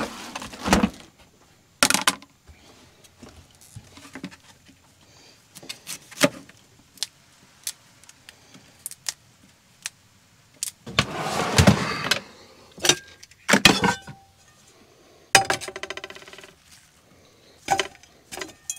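Kitchen prep: a knife tapping through broccoli onto a plastic cutting board in scattered sharp clicks and knocks. A louder rustling clatter comes about eleven seconds in, and more knocks of handling follow near the end.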